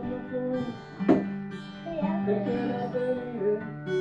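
Acoustic guitar strummed in a steady accompaniment, with one sharp, loud hit about a second in.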